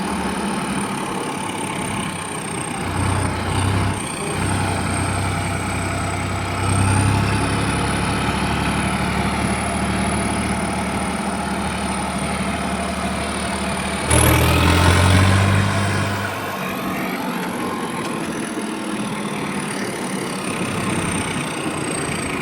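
Tractor engine running steadily, with a high whine above it; about fourteen seconds in it grows louder for two seconds, the whine leaping up in pitch, then settles back.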